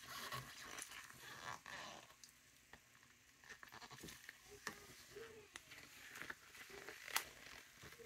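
Faint, sparse handling sounds of rubber-gloved hands wringing dye-soaked fabric in a plastic tub: scattered light clicks and taps, with a few short squeaks about halfway through.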